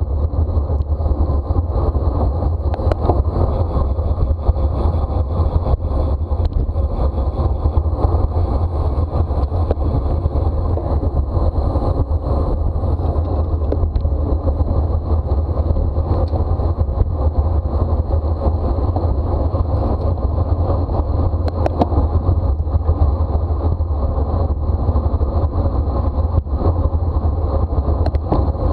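Wind rushing and buffeting over the microphone of a camera riding on a racing bicycle at speed: a steady, loud low rumble, with a faint steady high tone above it.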